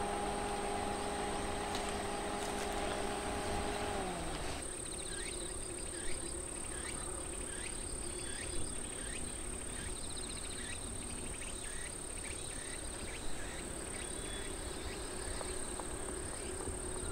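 Insects calling from the grass and rice fields: a steady high-pitched whine with short falling chirps repeating about once or twice a second. For the first four seconds or so a low steady hum sounds with them, then drops in pitch and stops.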